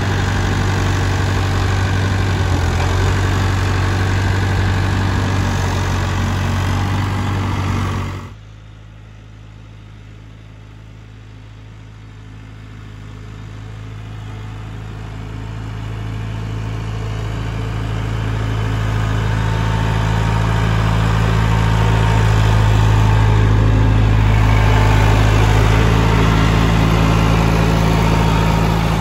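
McCormick C70 tractor's diesel engine running with a steady drone. About eight seconds in it drops away suddenly to a distant hum, then grows steadily louder as the tractor comes closer with a round hay bale on its front loader.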